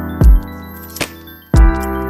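Background music with deep bass thumps and sharp percussive hits over sustained notes.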